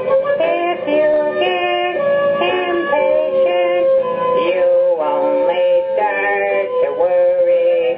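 Children's song music: a melody moving in short held notes over accompaniment.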